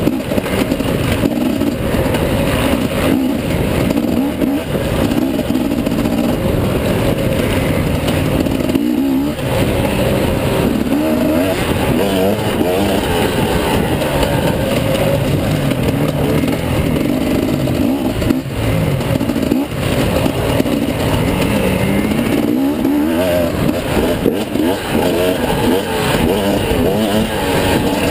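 Enduro dirt bike engine revving up and down with the throttle while ridden hard along a rough trail, heard close up from the rider's camera over a constant rush of wind. A few knocks from the bumps are heard.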